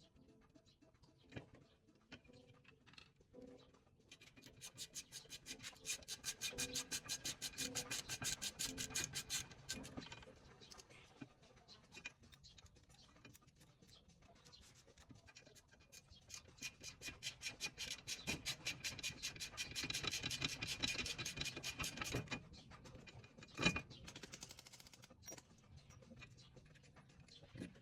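Ratchet wrench being worked on brake hardware: two long runs of rapid, even clicking, with a single knock near the end.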